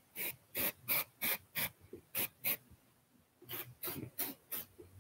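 Aerosol can of dry shampoo sprayed into hair in short puffs, a quick run of about seven, a brief pause, then several more.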